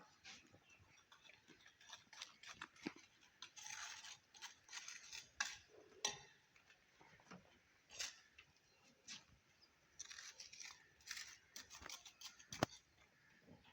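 Faint, irregular scraping and tapping of hand masonry work on a concrete block wall, with a sharper knock near the end.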